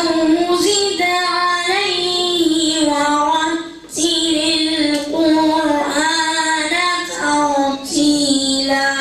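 A boy chanting Quran recitation in the melodic tajweed style, long drawn-out phrases with a short breath about four seconds in.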